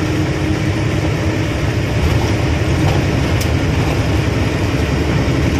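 Truck engine and road noise heard inside the cab while driving: a steady low drone under an even rushing hiss.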